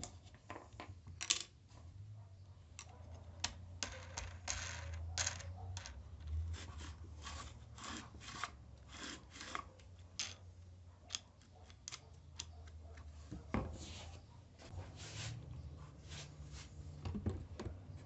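Irregular clicks, taps and short scrapes of small tools and parts being handled, over a low steady hum.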